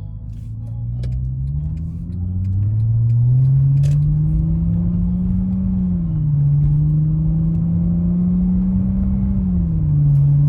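Mercedes-Benz C300's 3.0-litre V6 accelerating under throttle, its note rising steadily and then dropping twice as the transmission upshifts, about six seconds in and near the end.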